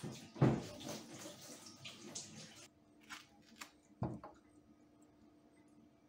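Water running and splashing in a stainless steel kitchen sink as things are washed, with a loud knock about half a second in. The water stops abruptly a little before halfway, and a few clicks and a knock follow.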